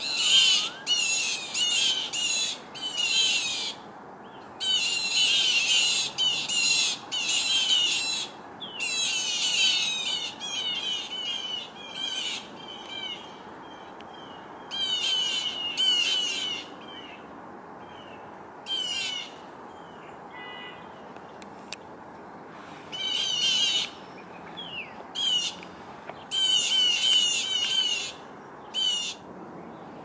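Small birds giving harsh, high-pitched calls in short bursts, over and over with brief gaps. These are the alarm calls of birds mobbing a perched owl.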